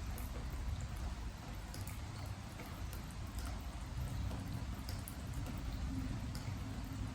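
Steady rain on a wooden deck, a soft even hiss with single drops ticking sharply about once or twice a second at irregular intervals.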